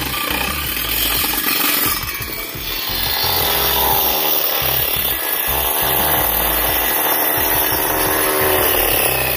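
Electric drill spinning a hole saw through a wooden box panel, cutting a round hole with a steady grinding rasp.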